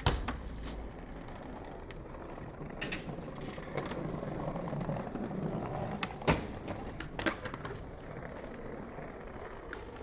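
Skateboard rolling, its wheels giving a steady rumble that swells in the middle, broken by several sharp clacks of the board, the loudest about six seconds in.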